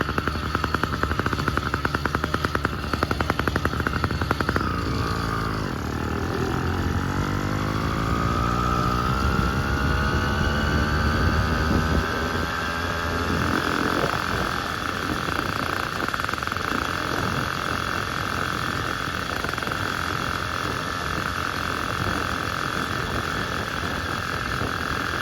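Phantom 85 80cc two-stroke engine on a motorized bicycle running with a rapid pulsing. About five seconds in its speed drops, then climbs steadily for several seconds and holds at a high, steady pitch.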